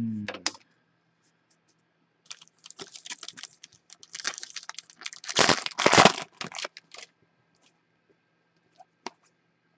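Foil wrapper of a football trading-card pack being torn open and crinkled by hand: a run of crackling rustles, loudest about halfway through.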